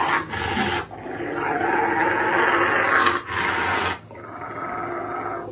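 A dog growling in long, drawn-out stretches, broken by a few short pauses.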